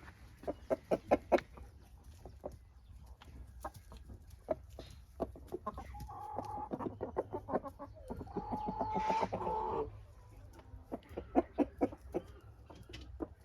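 Chickens clucking, a run of short separate clucks, with two longer drawn-out calls midway, the second, about nine seconds in, the loudest.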